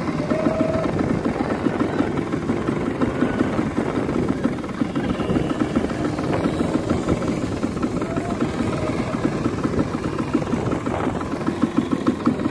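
Sport quad bike (ATV) engines running and revving as several quads ride over sand, a fast steady pulsing throughout. Near the end one engine gets louder and steadier as a quad comes closer.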